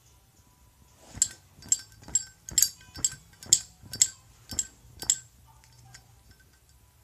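Zippo lighter's metal lid clinking open and shut over and over during a flip trick, about a dozen sharp clicks roughly two a second, stopping about five seconds in.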